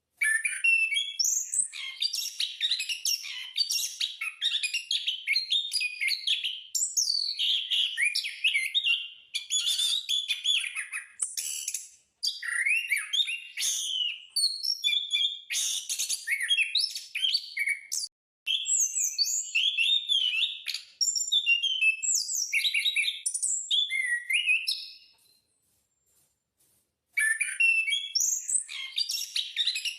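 Anis (punglor) ground thrush singing in long, fast, rolling phrases of varied high chirps and whistles. The song breaks off briefly near 12 and 18 seconds, and for about two seconds near 25 seconds.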